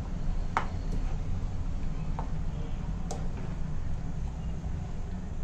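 A spoon stirring chicken in masala in a frying pan, with a few light clicks of the spoon against the pan over a steady low hum.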